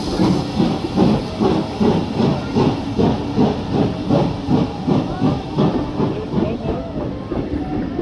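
Steam locomotive pulling away with a train, its exhaust beating regularly about two and a half times a second over a steady hiss of steam, easing a little toward the end.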